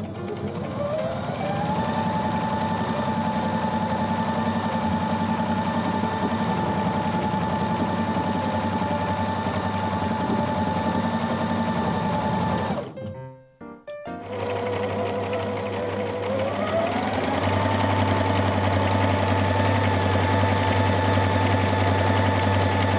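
Brother LICIA ZZ3-B583 sewing machine running: its motor whine rises over about two seconds to a steady speed, stops about 13 seconds in, then starts again and speeds back up to the same steady whine.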